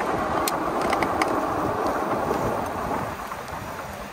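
Wind rushing over the microphone while riding a bike, a steady rumbling noise with a few faint clicks in the first second and a half.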